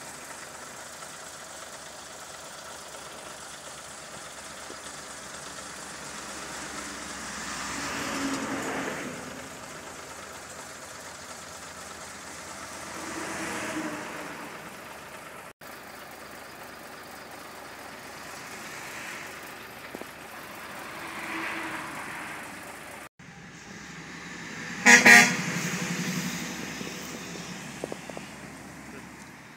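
Road traffic with heavy trucks passing one after another, each a swelling rush of engine and tyre noise. About five seconds from the end, a vehicle horn gives two short, loud toots close together.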